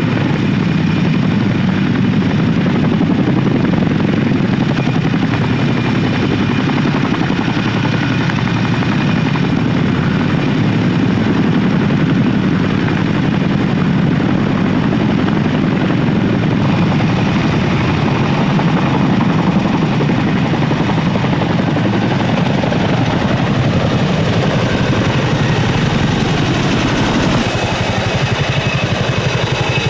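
Boeing CH-47 Chinook tandem-rotor helicopter flying low, its twin rotors making a steady, rapid chop over a steady turbine whine. The low rotor sound thins a little near the end.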